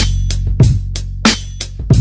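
Background music: a steady drum beat of about three hits a second over a held bass line.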